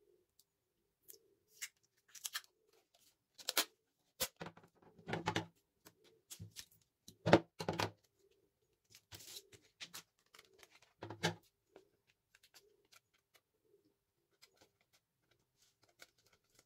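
Clear adhesive tape being pulled and torn while stiff paper crackles under the hands, in a string of short, scratchy bursts with a few soft knocks on the table, loudest about halfway through.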